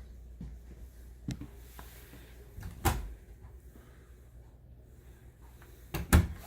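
Slow-close drawers being shut, each one ending in a muffled thud: a light knock about a second in, a louder thud near three seconds, and two thuds close together near the end, the loudest of them.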